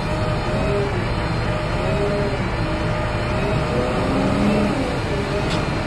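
Heavy diesel engine running steadily, a continuous drone with faint wavering tones on top.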